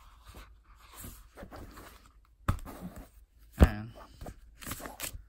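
Paper rustling as a printed instruction booklet is leafed through and set down. A sharp tap comes about two and a half seconds in, and a louder thump about a second later.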